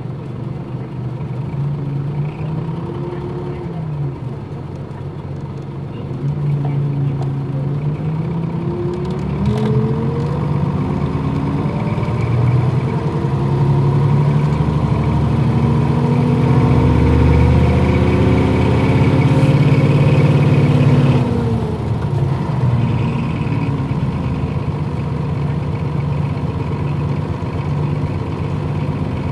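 Nissan Diesel KL-UA452MAN city bus's diesel engine under way. The engine note climbs steadily as the bus accelerates, drops abruptly a little past twenty seconds as the throttle comes off, then runs on evenly at a lower level.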